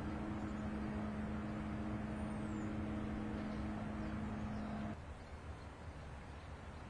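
Steady drone of a running engine, one low tone with overtones over a rumbling noise, cutting off abruptly about five seconds in.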